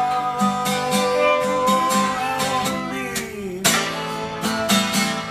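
Acoustic guitar strummed in a steady rhythm with a fiddle playing along and a man singing. A long held note slides down about three seconds in, followed by a hard strum.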